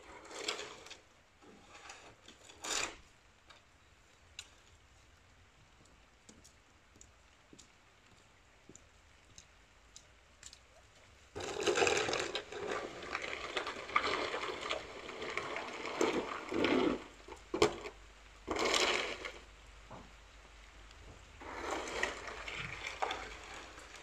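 Long-handled stable broom sweeping straw across a wet concrete yard in repeated scraping strokes. A few faint strokes come at first, then about halfway through they turn loud and close, in a dense run of scrapes, with further bouts near the end.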